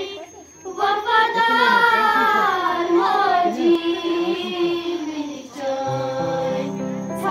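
Young schoolchildren singing a song, starting after a brief lull; a steady low accompaniment joins about six seconds in.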